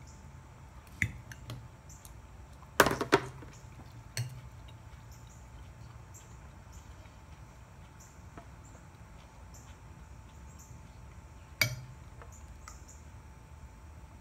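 A few scattered sharp knocks and clinks of tableware being struck at a toddler's meal, the loudest a quick double knock about three seconds in and another single knock near the end.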